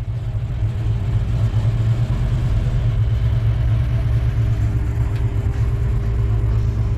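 A car engine idling close by: a steady, deep rumble.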